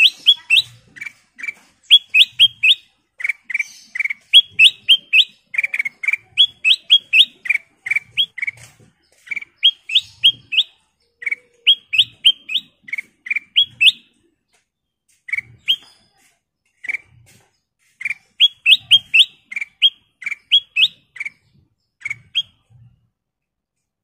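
Kutilang emas (ruby-throated bulbul) singing: short, bright, upward-slurred chirps in quick runs of three or four, with a few brief pauses, stopping near the end.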